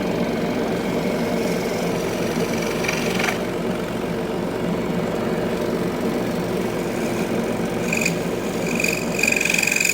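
Scroll saw running steadily, its blade reciprocating rapidly as it cuts wood. A thin high squeal joins in briefly about eight seconds in and again near the end.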